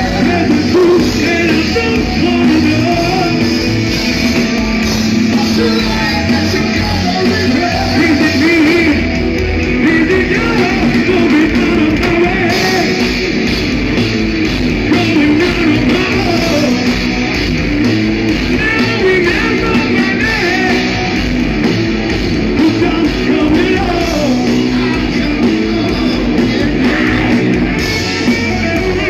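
Live progressive metal band playing loud, with electric guitars, drums and keyboards and a singer's voice over them.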